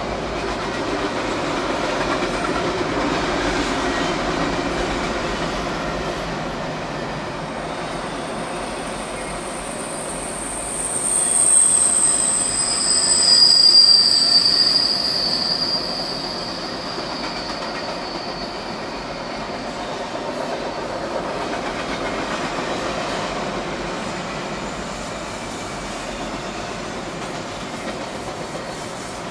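Long freight train of container cars rolling past, with a steady rumble and clatter of cars and wheels on the rails. From about ten seconds in, steel wheels squeal on the rail for several seconds: first a very high squeal, then a lower one, which is the loudest part, before it fades back to the rolling noise.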